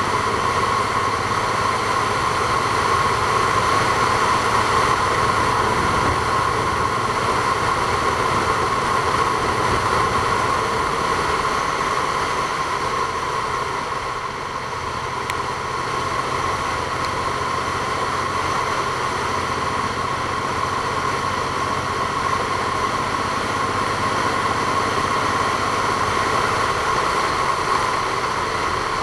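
Steady vehicle running noise: a constant drone with a strong steady hum, easing slightly about halfway through.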